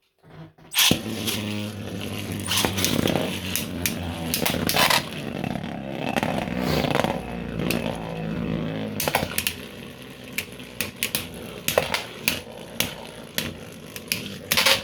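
3D-printed plastic Beyblade spinning tops battling in a stadium: a sudden start about a second in, then a steady whir with many sharp clicks and knocks as the tops collide, and a burst of clashes near the end.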